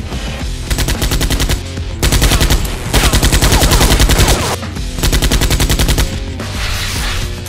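Automatic gunfire sound effect: several bursts of rapid shots, each about a second long, over background music.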